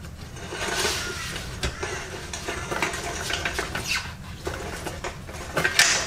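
Loose motorcycle drive chain clinking and rattling against the rear sprocket as it is worked by hand, in irregular metallic clatters, the loudest near the end.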